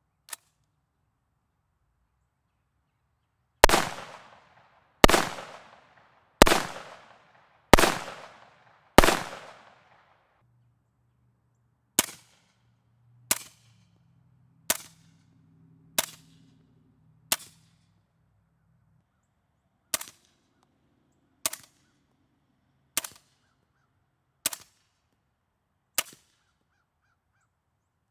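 Sig Sauer MCX short-barrelled rifle in .300 Blackout firing single shots of 220-grain subsonic ammunition. First come five unsuppressed shots, about 1.3 s apart, each with a long ringing tail. After a short pause come ten quieter, shorter shots, about 1.4 s apart, with the Sig Sauer SRD762-QD suppressor fitted.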